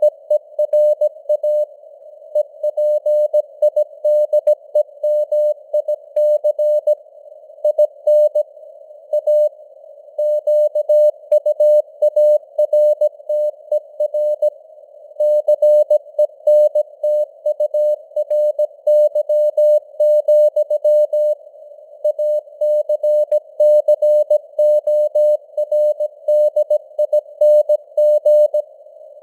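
Morse code (CW) sent at 17 words per minute: a steady tone of about 600 Hz keyed on and off in dots and dashes, with short gaps between letters and words. Under it runs a narrow band of simulated radio hiss, and the signal strength varies as in fading (QSB).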